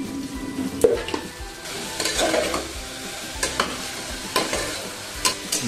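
Steel spoon stirring dal and vegetables in an aluminium pressure cooker, knocking and scraping against the pot several times, over the sizzle of frying.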